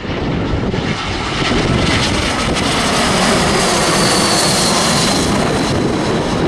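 Jet airliner passing close, its engine roar swelling to a peak midway, with a high whine that slides slightly down as it goes by.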